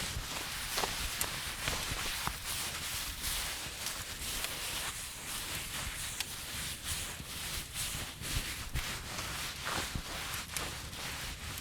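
Fireplace fire crackling: a steady hiss with irregular sharp pops and snaps.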